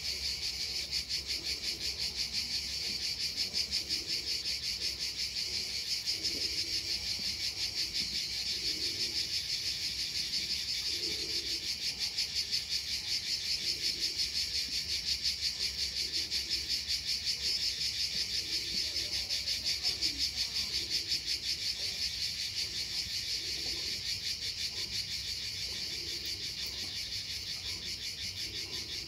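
Cicadas singing in chorus: a steady, high, pulsing buzz that keeps up without a break.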